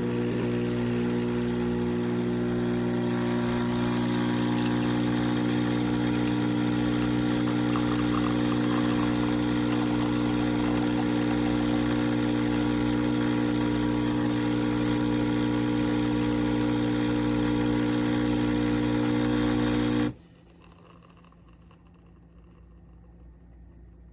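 Espresso machine's pump buzzing steadily for about twenty seconds, then cutting off suddenly.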